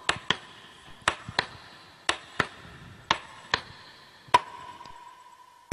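Sparse electronic percussion from a dance track: sharp click-like hits about once a second, often in quick pairs, with a held high beep ringing on after the hit near the end.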